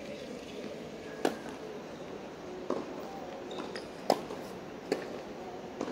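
Tennis rally: five sharp pops of the ball struck by rackets and bouncing on the court, spaced about a second apart. The loudest, about four seconds in, is the near player's forehand with a Wilson Pro Staff 97 strung with Solinco polyester strings.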